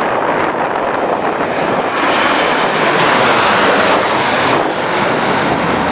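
Jet airliner passing on landing approach, its engine noise swelling to a peak about halfway through and then easing off, over gusty wind buffeting the microphone.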